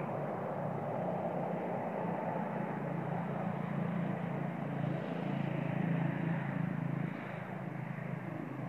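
A motor vehicle's engine running with a steady low hum, which grows louder around the middle and drops back about seven seconds in, like a vehicle passing.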